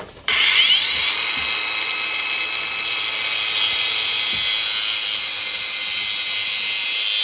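Angle grinder with a cut-off wheel switched on, spinning up with a rising whine and then running steadily as it cuts through a length of hydraulic hose.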